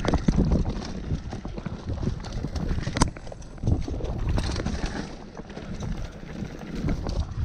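Mountain bike rolling fast down a dirt trail: tyres rumbling and crackling over dirt and dry leaves, the bike rattling and clicking over bumps, with wind buffeting the camera microphone. A sharp knock about three seconds in.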